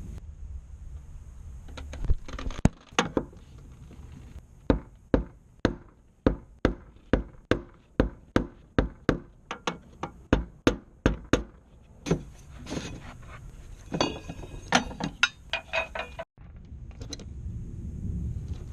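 A hand tool striking metal: a steady series of sharp taps, about two a second for several seconds, then a few ringing metallic clinks near the end.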